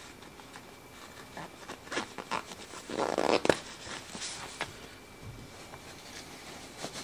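Zipper on a fabric pet-stairs cover being pulled closed in short tugs, with the cloth rustling as it is handled; the longest, loudest pull comes about three seconds in.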